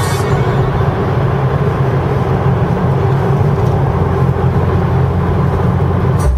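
Steady in-car road noise of a small car cruising at motorway speed: a low engine drone with tyre and wind rumble.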